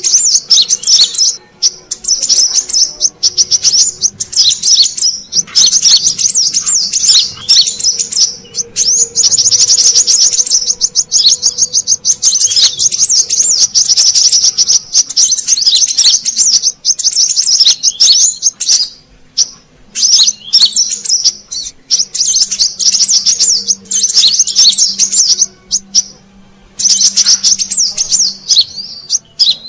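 Kolibri kelapa (brown-throated sunbird) lure call: rapid, high, piercing chirps and trills in long dense strings, broken by short pauses twice, used to draw wild birds in.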